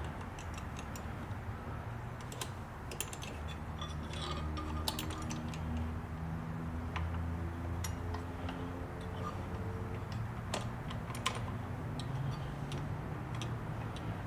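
Scattered small clicks and taps of sewing-machine parts being handled and fitted back into place, irregular and light, over a low steady hum.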